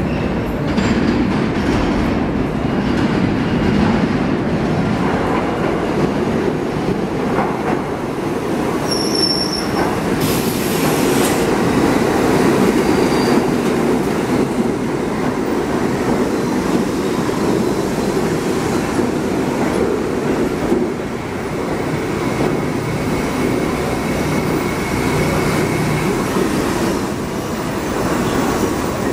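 R68A subway train pulling into an underground station and slowing along the platform: a loud continuous rumble and clatter of steel wheels on rail, with a brief high wheel squeal about nine seconds in and a steady high whine for several seconds in the last third.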